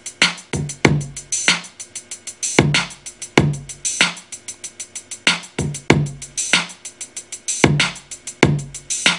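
Step-sequenced drum loop playing back from a Native Instruments Maschine: a fast, even run of hi-hat ticks over kick and snare hits, the snare layered with a clap, in a looping hip-hop pattern with a southern feel.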